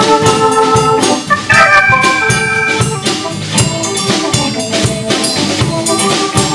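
Live band playing an instrumental break in a slow blues: an organ-voiced keyboard holds chords over a steady drum-kit beat, with electric bass and acoustic guitar.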